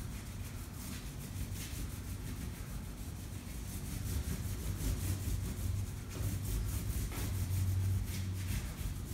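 Oil pastel scrubbing across brown kraft paper taped to a wall, in a fast run of short colouring strokes.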